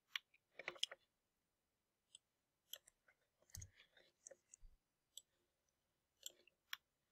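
Faint, scattered clicks of a computer mouse at a desk, a dozen or so at irregular spacing, with two soft low thumps in the middle; otherwise near silence.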